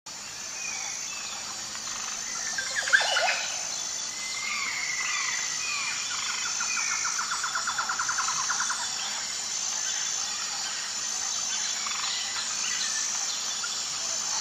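Outdoor ambience of birds calling and chirping over a chorus of insects, whose high note pulses at even intervals. A sharp, louder call comes about three seconds in, and a rapid trill runs through the middle.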